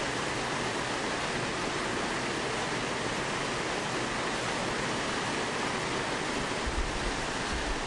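Water pouring in sheets over the ledge of a water feature into a foaming pool: a steady, even rush of falling water.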